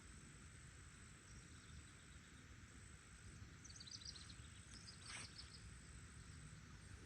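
Faint outdoor ambience by a lake: a steady high insect hum, with a bird chirping in short bursts about halfway through.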